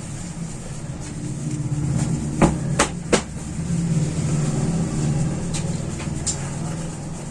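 A steady low hum like a small motor running, louder from about two seconds in, with three sharp clicks in quick succession about two and a half seconds in and a few fainter clicks later.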